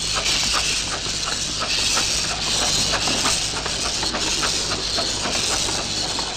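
A 15-inch gauge steam locomotive hissing steam, the hiss swelling and easing, with light metallic ticks about three a second.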